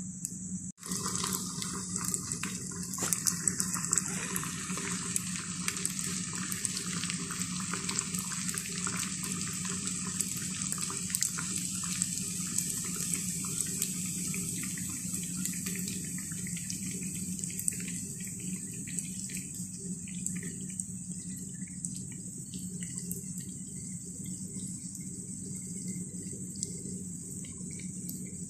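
Neyyappam batter frying in hot oil: dense sizzling with many small crackles, busiest in the first half and thinning out toward the end.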